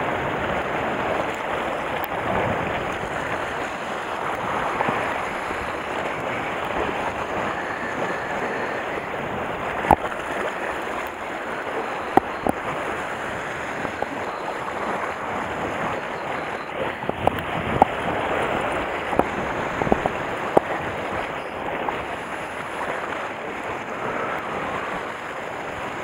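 Sea waves washing and splashing against a rocky shore, a steady rushing, with wind on the microphone and a few sharp clicks in the second half.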